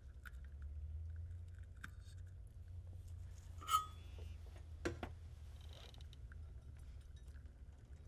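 Faint handling noises of small electronics work: light clicks and taps over a steady low hum, with one sharper click and a brief ring nearly four seconds in and a softer knock about a second later.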